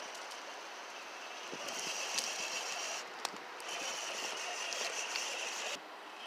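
Electric drive motor and gearbox of a New Bright 1:6 scale RC Hummer H2 crawler whining at a steady pitch in two stretches as the truck crawls over sticks and rocks. A few sharp clicks come along with it, and the whine cuts off suddenly near the end.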